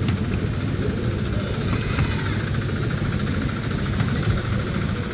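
Steady low rumble of a moving miniature train ride, heard from on board.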